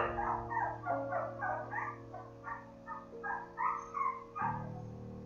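Newborn sprocker spaniel puppies squeaking and whimpering: a string of short, high squeaks, two to three a second, that stops about four and a half seconds in, over soft held background music notes.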